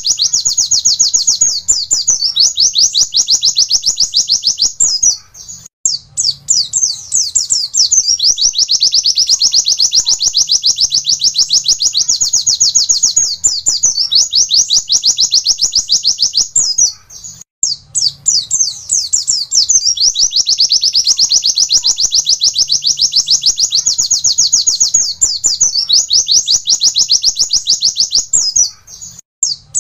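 A white-eye (pleci) singing long, fast 'wit-wit' runs: a rapid string of repeated high notes held for several seconds at a time. The song breaks off briefly about five, seventeen and twenty-nine seconds in.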